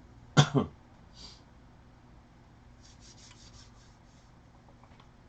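Faint scratching and rubbing as a sealed trading-card box is opened, with a quick run of short rasps about three seconds in, like a blade or fingernail working through the plastic wrap.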